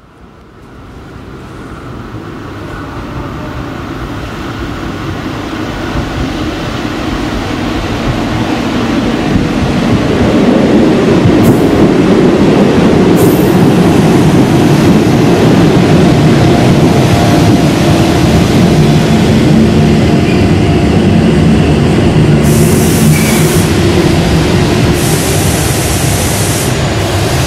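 Rumbling noise of a train running, fading in from silence and growing louder over about ten seconds, then holding steady.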